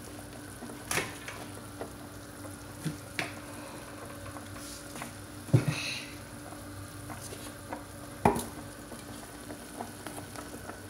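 Pot of lamb simmering in water, bubbling steadily, with a few sharp clinks and knocks of a metal spoon against the pot, the loudest a little past halfway.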